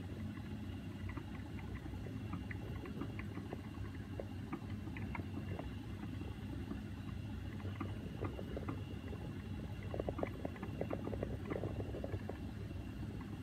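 Magnetic stirrer running with a steady low hum and a faint high tone, while the stir bar in a small glass vial of slurry makes many small irregular ticks, thickest about ten to twelve seconds in.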